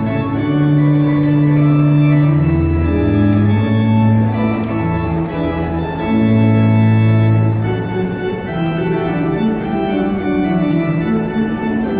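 Organ playing long held chords over a slowly moving bass line.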